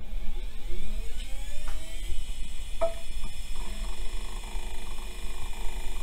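Western Digital Caviar IDE hard drive spinning up at power-on: a whine that rises in pitch over about two seconds and then holds steady, with a few clicks from the heads about one to three seconds in as the drive initializes. A steady low hum runs underneath.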